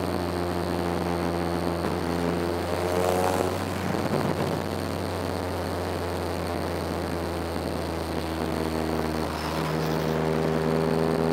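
Car engine and road drone heard from inside the cabin while driving, the engine's pitch rising twice as the car accelerates: once about two seconds in and again near the end.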